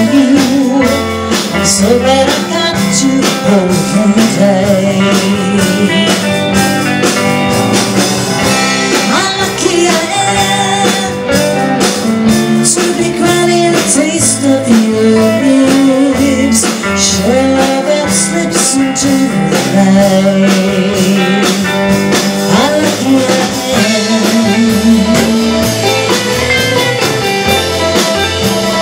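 Live blues band playing: two electric guitars over a drum kit, with guitar notes bent and shaken with vibrato over a steady beat of cymbal strokes.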